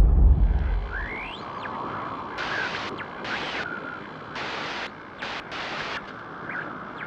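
Logo-intro sound effect: a deep boom fading away over the first second, then a steady hiss broken by several abrupt louder bursts of hiss and a few short rising and falling whistles.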